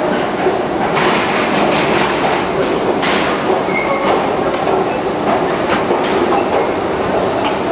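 Escalator running under the rider: a steady mechanical rumble with scattered clicks and clacks from the moving steps.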